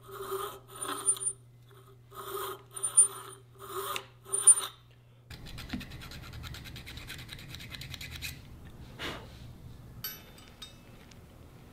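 Small hand file rasping in the slot of a silicon bronze spacer, about six short separate strokes over the first five seconds. Then the filing stops, leaving a faint steady hum with light ticks and a single sharp tap later on.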